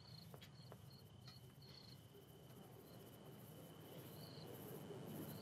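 Crickets chirping faintly in short high chirps every half second or so, over a steady thin high trill.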